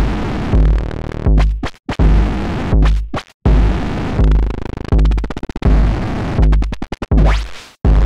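VCV Rack software modular synth playing a noise patch: white noise filtered through the Parametra parametric EQ, its frequency and gain moved by an LFO, with a rising sweep near the end. Underneath is an electronic bass drum thumping about every 0.6 s, with quick stuttering bursts of clicks and brief cut-outs to silence.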